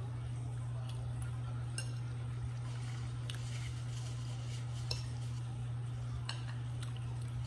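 A metal fork clinking and scraping on a plate about half a dozen times while someone eats, over a steady low hum.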